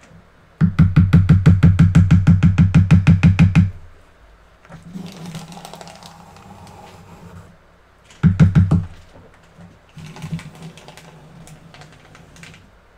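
A loud, fast run of taps or rattles, about ten a second for some three seconds, then softer scraping. A second short run of taps comes a little past the middle, followed by more scraping: utensils working against soap containers and moulds.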